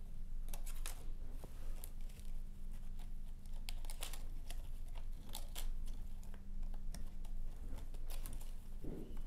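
Irregular light clicks and plastic rustling of flat ribbon cables being wiggled and slid out of their connectors on a TV's LED driver board by gloved hands, over a faint steady low hum.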